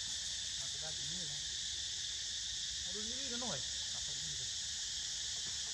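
A steady, high-pitched chorus of insects that runs without a break, with faint voice-like sounds rising and falling about a second in and again about three seconds in.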